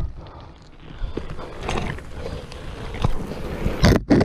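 Motorcycle crash heard from the rider's camera: a rushing scrape of the sliding rider and bike, with a hard hit at the start and several thuds during the slide, the loudest near the end.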